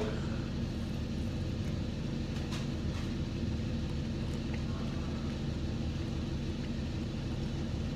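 Steady low machine hum, with a couple of faint clicks about two and a half and three seconds in.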